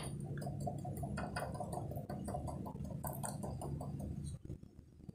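A person chewing raw bitter gourd (ampalaya) with her mouth full: an irregular run of small crunching clicks that stops a little after four seconds in, over a steady low hum.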